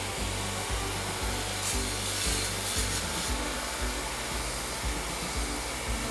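Steady whirring, blowing noise like a hair dryer, with a brighter hiss for about a second and a half near the middle, over background music with a steady beat.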